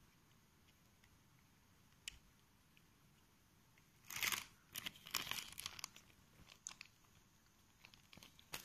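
Plastic zip-lock bag crinkling and rustling as it is handled. Mostly quiet at first, then a few short crackly bursts from about halfway in, with scattered small clicks.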